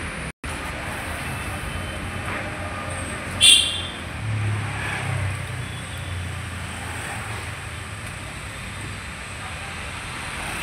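Road traffic noise: a steady hum of vehicles. About three and a half seconds in there is one brief, sharp, high tone, and the sound drops out completely for a moment just after the start.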